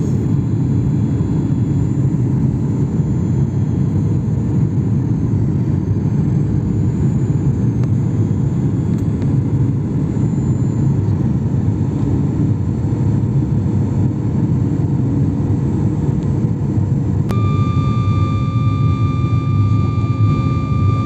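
Jet airliner cabin noise heard from a window seat: a steady low rumble of engines and airflow. Near the end a steady high whine starts suddenly and holds.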